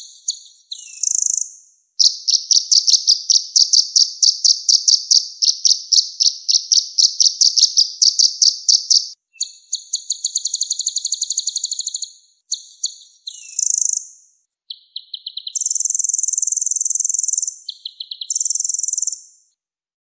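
Kolibri ninja sunbird ('konin') singing a fast rolling song: a long run of rapid, high-pitched repeated notes, then several fast buzzy trills with short chirps between them. The song stops about half a second before the end.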